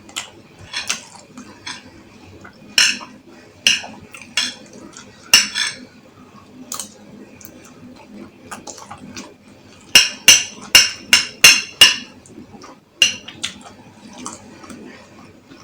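Cutlery clinking and scraping against a bowl of food in irregular strikes, with a quick run of about six sharp clinks about ten seconds in.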